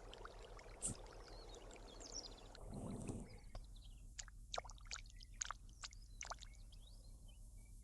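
Faint running, pouring water, swelling briefly about three seconds in, then cutting off to a quieter natural background broken by about a dozen sharp clicks and a few faint high chirps.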